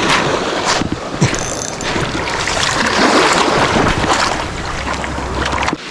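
Wind buffeting the microphone, a low rumble that cuts off suddenly near the end, over small waves washing on a pebble shore.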